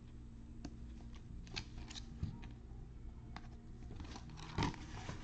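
Faint rustling, scraping and small clicks of a die-cut trading card being worked into a clear plastic card sleeve by gloved hands, with a sharper click about four and a half seconds in.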